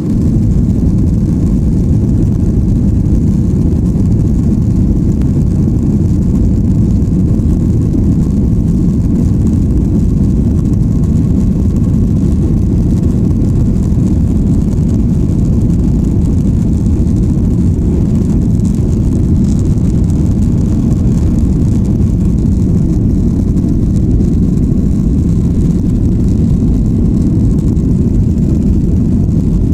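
Boeing 737-800 jet airliner's engines and airframe making a steady, loud low rumble, even in level with no clear rise in pitch.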